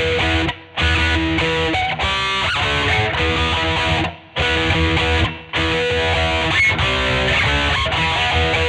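Electric guitar with a 'Jazzblaster' pickup conversion, played through an amp: strummed chords that are cut off short several times, with a quick run of single notes about two seconds in.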